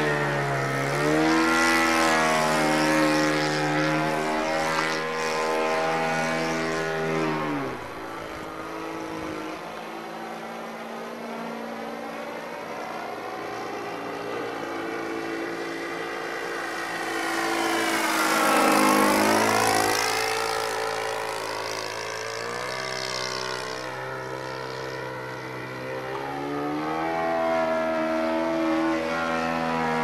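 OS FS-120 Surpass III four-stroke glow engine, fitted with new bearings, driving the propeller of a Seagull Yak 54 RC plane in flight. It runs at high power, is throttled back about a quarter of the way in, and dips and rises in pitch as it gets louder near the middle. Power comes back up near the end.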